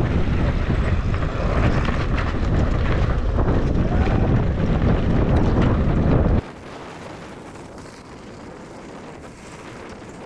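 Wind buffeting the action-camera microphone as a mountain bike rolls down stone paving, with frequent short rattles and knocks from the bike over the stones. About six seconds in it drops abruptly to a much quieter steady hiss.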